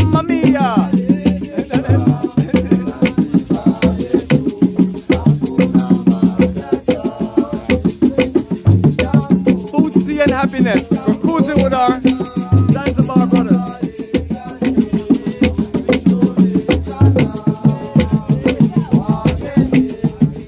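Upbeat music with a steady, busy percussion beat and a melodic line over it.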